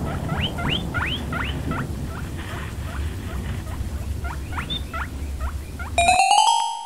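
Golden retriever puppy giving short, high squeaky whines, each rising quickly in pitch, in two runs over a steady low rumble. Near the end the rumble stops abruptly and bell-like music notes start.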